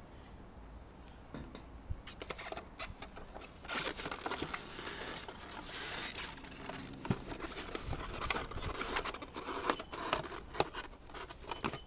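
Hands handling a plastic toy fire engine in its polystyrene packaging tray: irregular scraping, rubbing and clicking of plastic against polystyrene, louder for a couple of seconds about four seconds in.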